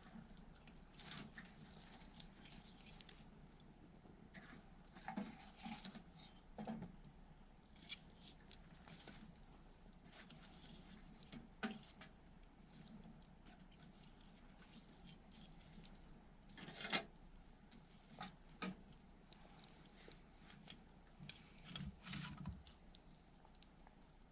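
Wood campfire crackling quietly: scattered, irregular pops and snaps over a faint hiss, with one louder pop about 17 seconds in.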